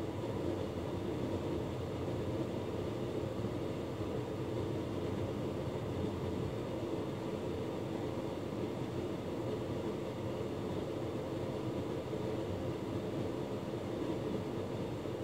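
Hotpoint Ultima S-Line tumble dryer running: a steady hum of its motor and fan as the drum turns, with no knocks or changes.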